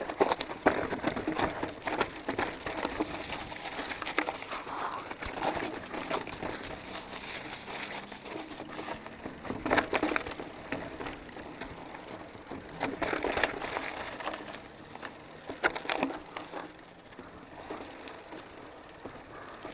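Specialized Enduro Comp 650b mountain bike on Maxxis Minion tyres descending a rocky trail: tyres crunching over loose stones and the bike rattling, with sharp knocks from bigger rock hits about ten, thirteen and sixteen seconds in. It goes quieter near the end.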